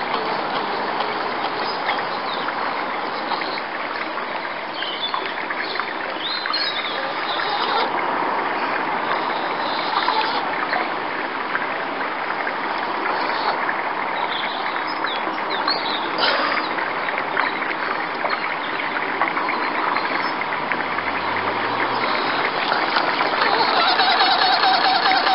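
Steady outdoor background noise, with small birds chirping now and then. Near the end a faint steady whine joins in.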